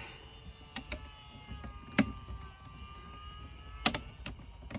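Plastic trim piece being handled and fitted around a car-style marine stereo in a dash: light handling ticks and two sharp clicks or knocks, one about two seconds in and one near the end.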